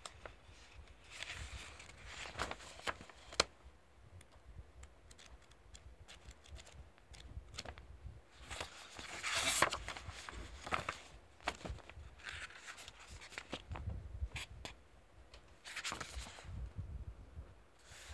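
Paper pages of a paperback comic book being turned and handled: irregular paper swishes and rustles, the loudest about nine to ten seconds in, with a few sharp little clicks and taps of fingers on the pages.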